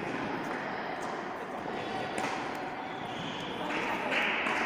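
Tennis ball being struck and bouncing during a rally on an indoor hard court: a few faint knocks over the steady noise of a large hall.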